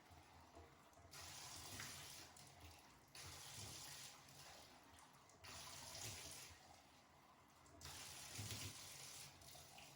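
Faint running water, starting and stopping in spells of a second or two: water being poured or sprayed over a dog to rinse it during a bath.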